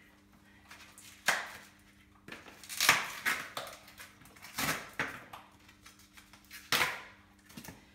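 Plastic and foam packaging being handled and pulled off a new mountain bike's front fork: a series of sharp crinkling, crackling rustles, the loudest about three seconds in.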